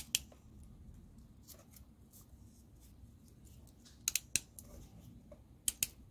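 Hand crimping pliers clicking sharply in small groups, twice close together several times, as they are set on and squeezed shut around a blue insulated butt crimp connector joining stripped wires.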